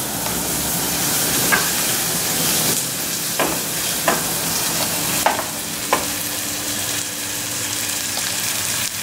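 Raw chicken breast sizzling steadily in hot olive oil with onion, garlic and chipotle in a small pan. A wooden spoon stirring and knocking against the pan about five times.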